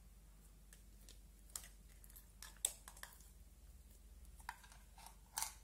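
Plastic spoon scraping thick slime out of a plastic cup: a few faint scrapes and clicks, the sharpest about two and a half seconds in and a longer scrape near the end.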